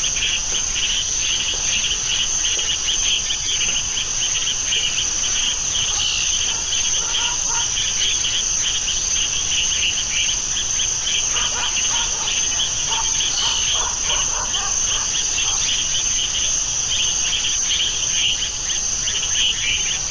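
A steady outdoor insect chorus of crickets chirring: one continuous high-pitched trill layered over a lower, rapidly pulsing one, unchanging throughout.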